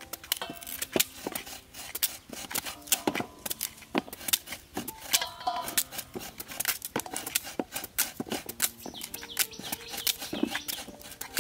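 Cleaver blade shaving the skin off a raw taro corm in quick, irregular scraping strokes.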